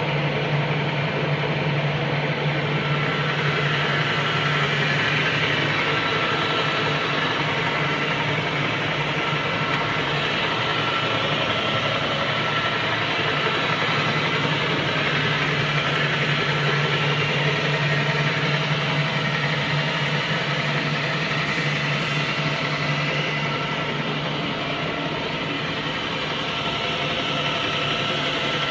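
1950s Meuser lathe running steadily: its motor and headstock gearing hum, with a thin constant whine over it.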